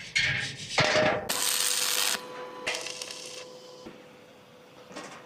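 A utensil scraping in the kitchen: four short scraping strokes in the first few seconds, the third the loudest, then it goes quiet over a faint steady hum.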